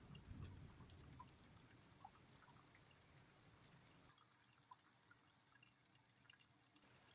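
Faint light rain: soft steady hiss with scattered drips, and a low rumble that fades over the first second or so.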